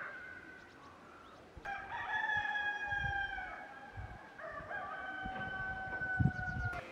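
Rooster crowing twice. Each crow is one long held call of about two seconds, the first starting about a second and a half in and the second about four and a half seconds in.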